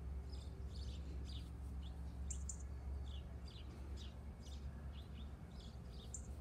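Small birds chirping: short high calls, about three a second, over a steady low rumble.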